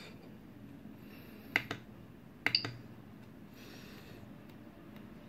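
Sharp clicks from the control knob of an Original Prusa i3 3D printer being pressed to step through its LCD menu: one click about a second and a half in, then a quick pair about a second later.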